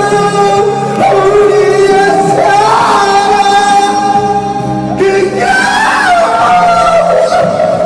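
A song with singing voices holding long notes over an accompaniment, sung in a large hall.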